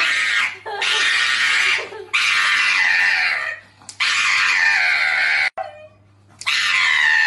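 Pug screaming while its front paw is held for a nail trim: a run of long, loud, high-pitched cries, one after another, with a short pause a little past halfway.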